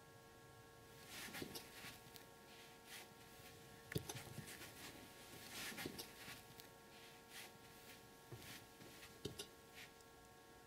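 Faint, scattered rustles and light clicks over a steady electrical hum.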